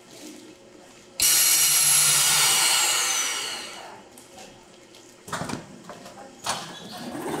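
Belt vacuum-packaging machine letting out a sudden loud hiss of air about a second in, fading away over a couple of seconds. A few clattering knocks from the machine follow near the end.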